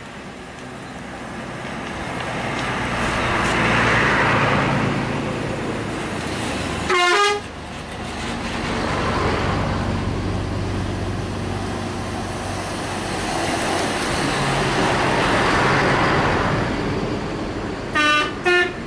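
Tour buses driving past one after another, their engine and tyre noise swelling and fading three times. About seven seconds in, one gives a short horn blast, and near the end a telolet horn starts a string of quick musical toots.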